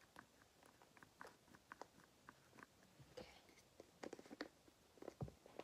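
Faint, scattered small clicks and taps of a plastic serum bottle being handled and its twist-up pump worked, with a few close together about four seconds in.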